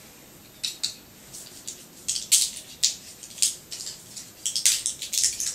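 Tablets being pressed out of a blister pack and dropped into a plastic pill organizer: a series of short, sharp crackles and clicks, coming more thickly near the end.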